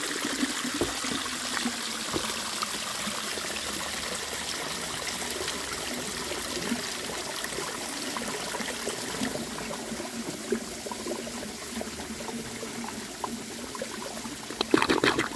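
Homemade clay toilet flushing: water trickling and draining steadily through the bowl and trap in a slow, weak siphon, with a brief louder burst near the end. The builder puts the slow flow down to a sharp 90° baffle that catches the water.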